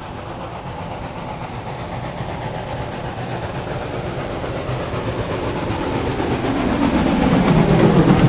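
A 1925 Baldwin 2-8-0 Consolidation steam locomotive hauling passenger coaches approaches and passes close by, growing steadily louder. It is loudest near the end as the locomotive and the first coaches roll past on the rails.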